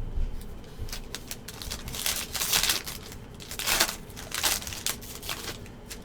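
Foil wrapper of a trading card pack being torn open and crinkled, in several short crackling bursts, the longest about two seconds in, with small clicks of handling between.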